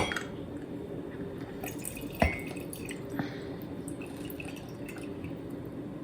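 Fresh lemon juice dripping into a cup, with a light knock right at the start and another about two seconds in.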